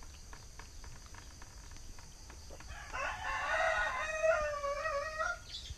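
A rooster crowing once, starting about three seconds in: one long call of some two and a half seconds.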